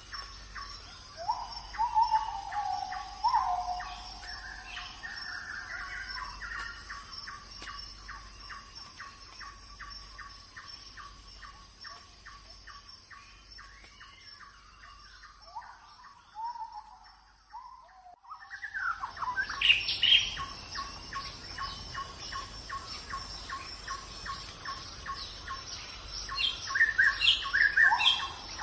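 Birds chirping and calling: a quick, regular ticking call repeats about three times a second, mixed with short falling calls. The sound fades briefly and almost stops for a couple of seconds in the middle, then picks up again with brighter chirps.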